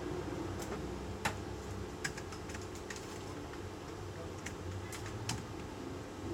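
Irregular sharp clicks and light knocks of camping gear being packed into an SUV's rear cargo area, over a steady low hum. A few clicks come about a second in, a quick cluster follows around two seconds, and a few more come near the end.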